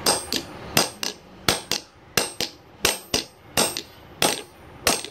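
Hammer striking the head of a bolt set in the bearing of a DC room cooler motor's end cover: about a dozen sharp metal-on-metal blows at an uneven pace, some with a short ring. The blows drive the bolt to jam inside a bearing stuck fast in its cover so that it can be knocked out.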